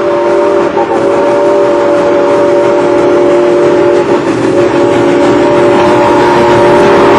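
A locomotive's chime sounds one long, steady chord of several notes, over the noise of a running train.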